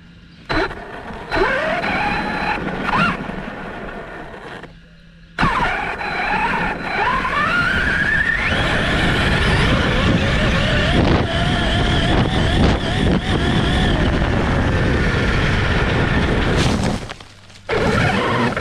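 An Arrma Kraton RC truck's brushless electric motor whines as it accelerates, first in short bursts, then in a long full-throttle run. The whine climbs in pitch and holds high over rumbling tyre and wind noise. Near the end the sound drops out briefly as the truck runs into bushes, then starts again.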